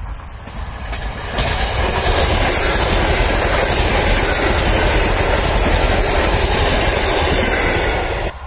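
ЭП2Д electric multiple unit passing close by: a loud, steady rush of wheels on the rails and moving cars. It comes in suddenly about a second in and drops off sharply near the end as the last car goes by.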